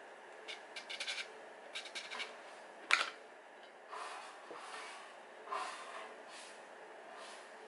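A small copper-coloured metal tin with a tight lid being worked open by hand: a few clusters of small scraping clicks, then one sharp click about three seconds in as the lid comes free, followed by soft rubbing as the tin and lid are handled.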